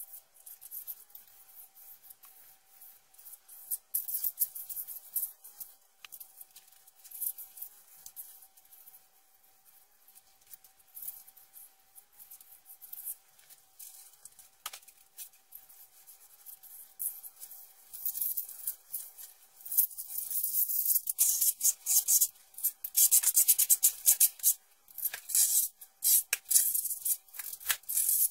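A float pad and a steel trowel rubbing and scraping across wet sand-mix concrete as it is slicked by hand, in irregular strokes. The strokes get louder and busier in the last third.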